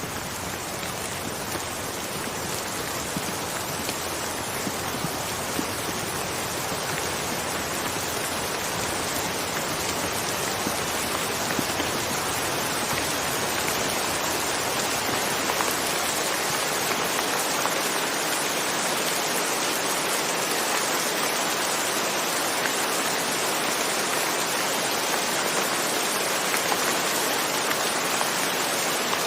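Steady rain falling, a dense even hiss with a few louder drops standing out, growing slightly louder over the first ten seconds or so.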